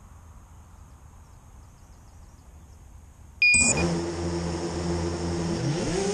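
Faint outdoor background, then about three and a half seconds in a short beep and an FPV quadcopter's motors starting up with a steady electric whine that rises in pitch near the end as the throttle goes up.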